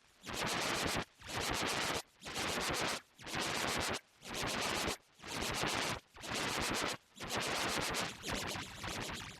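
A harsh, heavily distorted logo sound effect, edited into scratchy bursts of noise: about seven bursts just under a second long, one each second, then a longer burst near the end.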